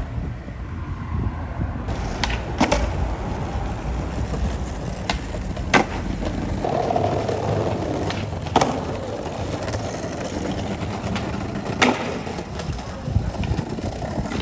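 Skateboard wheels rolling on pavement with a continuous rumble. Sharp wooden clacks of the board popping and landing come several times, a few seconds apart.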